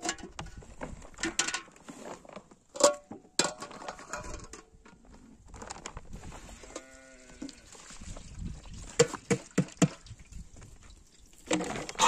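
Scattered sharp knocks and clatter, with one drawn-out farm animal call about seven seconds in.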